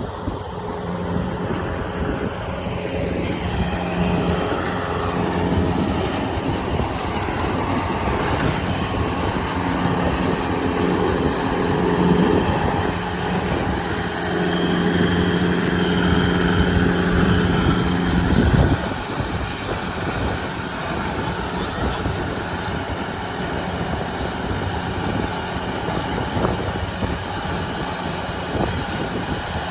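A Yanmar 82 rice combine harvester running under load while cutting, with a steady diesel drone and the noisy clatter of its cutting and threshing gear. The droning tone drops away a little past halfway through, leaving the rushing machine noise.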